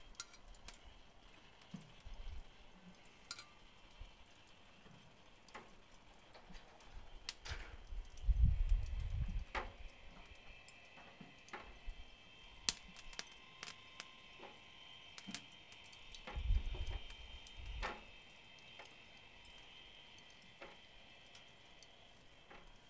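Irregular light clicks and taps of a basting brush against a steel saucepan and the ham on the rotisserie spit, with low dull knocks about eight seconds in and again about sixteen seconds in.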